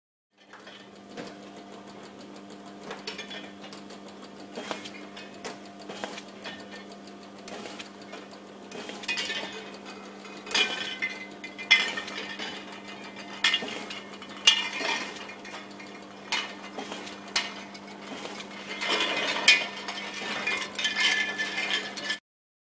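Pago Systems 100 labelling machine running with a steady hum, under frequent irregular clinks and knocks of glass containers bumping together as they ride the conveyor. A few of the clinks are sharp and loud.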